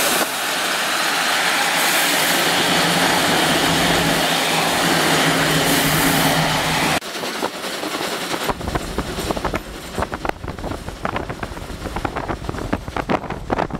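Class 86 two-cylinder 2-8-2 tank steam locomotive with its train running past close by, as a loud, steady rushing noise with a low hum. About halfway through, an abrupt cut changes it to the locomotive working hard, heard from alongside, its exhaust beats and rumble broken up by wind noise.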